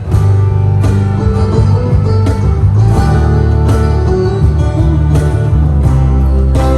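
A live band playing an instrumental passage between sung lines: strummed acoustic guitar chords over a bass line, with a steady beat.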